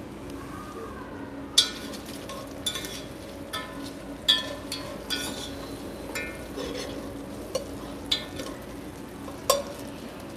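Diced bacon sizzling in an enamelled cast-iron Dutch oven while a spoon stirs it. From about a second and a half in, the spoon scrapes and clinks against the pot at irregular intervals.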